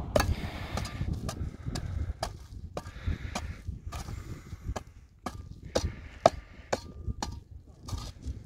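Iron hoe blade striking and scraping hard, dried clay ridges in a dirt track. The sharp chops come irregularly, about two a second, with one louder strike past the middle.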